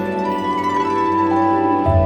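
Background music: soft instrumental with plucked-string or keyboard notes over held tones and a recurring low bass note.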